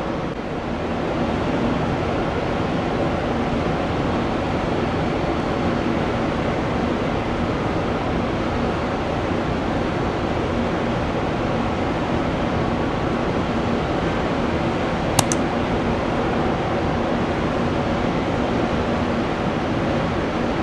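Steady rushing airport background noise with a faint low hum under it, and a single sharp click about fifteen seconds in.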